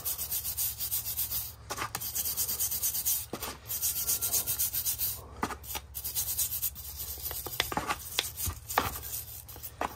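A hand wire brush scrubs a rusty steel front spindle, held over a tub of cleaning solvent, in quick back-and-forth strokes. A few sharper clicks come near the end as the brush knocks the metal.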